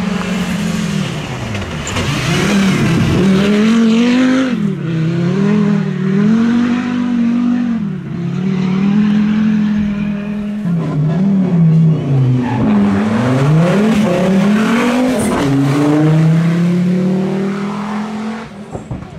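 Rally car engine revving hard on a loose dirt stage, the note climbing and dropping again and again as the car comes through and drives off. It fades near the end.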